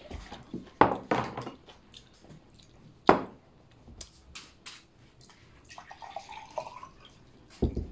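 Water poured from a plastic pitcher into a drinking glass about six seconds in, its pitch rising as the glass fills. Before that come a few sharp knocks, the loudest about three seconds in.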